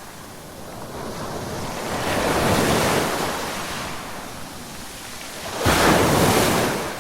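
Ocean waves breaking on the shore: one wave swells and washes in about two seconds in, then a louder wave crashes suddenly near the end and fades.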